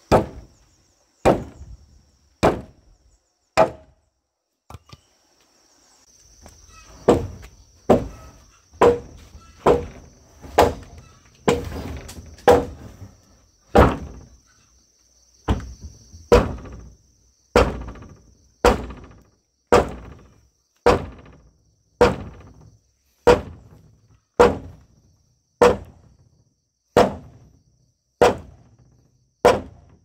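Regular sharp blows of a hand tool, about one a second, with a pause of about three seconds after the first four strikes. Insects buzz steadily on one high note behind them.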